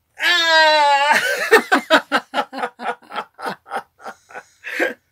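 A woman laughing hard: a long high-pitched shriek of laughter for about a second, then a run of short rhythmic 'ha' bursts, about four a second, that tail off near the end.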